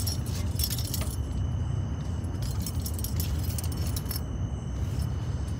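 Small portable fan running: a steady low rush of air with a faint thin motor whine. Light clinking rattles come and go, near the start and again around the middle.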